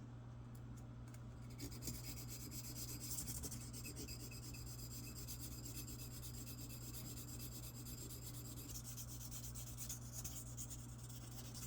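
Ultra-fine 1000-grit sandpaper, pressed with a wooden dowel, rubbed quickly back and forth over a metal lock pick to smooth its rough edges: a faint, fast, scratchy rubbing that starts about two seconds in.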